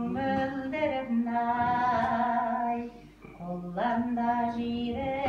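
Elderly woman singing Kazakh folk verse with long held notes, breaking off briefly for breath about three seconds in.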